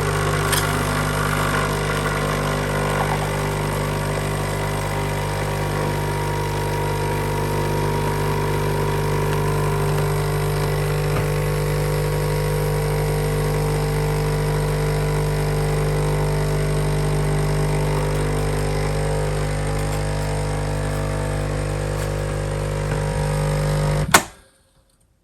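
Nescafé Dolce Gusto Mini Me capsule coffee machine brewing a hot milk capsule: its vibratory pump runs with a loud, steady buzz, then cuts off abruptly with a click near the end as the set volume is reached.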